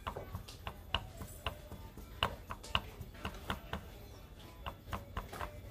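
Honda Supra X125 connecting rod clicking lightly, a few irregular clicks a second, as it is pulled forward and tapped by hand with the cylinder head off. The klek-klek is the sign of play in a worn connecting rod that needs replacing.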